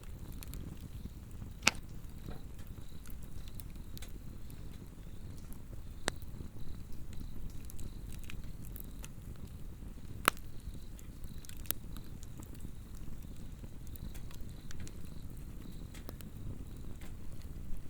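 Swedish torch log fire burning with a steady low rumble, broken by scattered sharp crackles and pops, the loudest under two seconds in and about ten seconds in. Insects trill faintly and steadily at a high pitch behind it.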